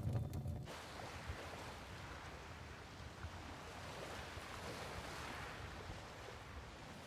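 Music cuts off under a second in, leaving small sea waves washing onto a sandy beach. The surf swells once about four to five seconds in, then eases.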